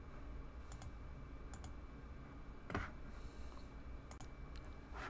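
A handful of faint, sharp clicks at a computer, spaced out over a few seconds, with a slightly stronger one about halfway through. A brief hiss comes soon after it, over a steady low hum.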